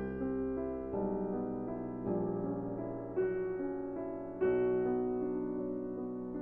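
Background music: soft piano or electric-piano chords, changing about once a second or so.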